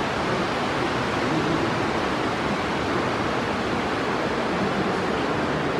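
Steady rushing of flowing water at a spring pool, an even unbroken hiss.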